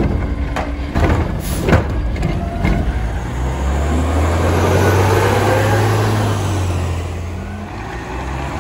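Curotto-Can arm on a natural-gas Mack LR garbage truck with a Heil Sierra body tips a cart, giving a few sharp knocks. From about three seconds in, the truck's natural-gas engine rises as it pulls away, then eases off as it moves down the street.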